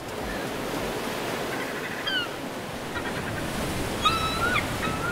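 Surf washing onto a beach in a steady hiss, with gulls calling: a short falling call about two seconds in and a longer call near the end.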